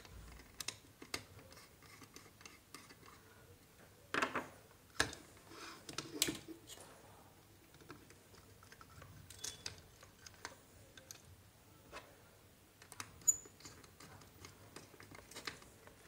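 Small screwdriver scraping and clicking on the brass terminal screw of a switchboard socket while a copper wire is fastened under it, with soft rustling as the wire is handled. A few sharper clicks come about four to six seconds in and again near thirteen seconds.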